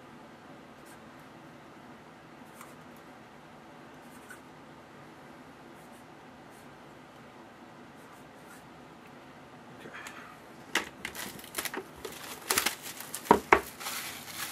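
Faint scratching and ticking for about ten seconds, then trading card packaging being torn and crinkled open in a run of loud crackling bursts.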